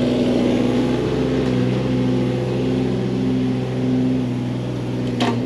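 Kubota KX018 mini excavator's diesel engine running steadily at an even pitch, with a single short click near the end.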